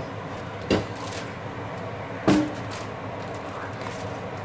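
Two sharp knocks about a second and a half apart as the hot copper sauté pan is moved and tipped to pour off surplus tin, the second louder and ringing briefly, over the steady hiss of the gas burner.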